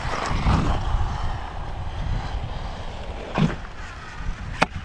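Brushless electric motor of a 1/16-scale RC truck whining as it drives, with the pitch gliding as the throttle changes, under wind noise on the microphone. A thump a little over three seconds in and a sharp knock near the end.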